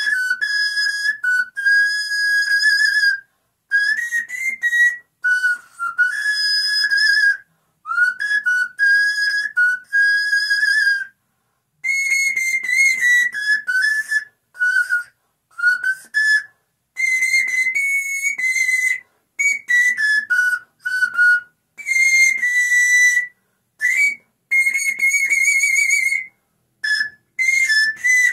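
Small seven-pipe bamboo panpipe played solo: a slow melody of high, breathy held notes, some wavering with vibrato, in short phrases separated by brief silences.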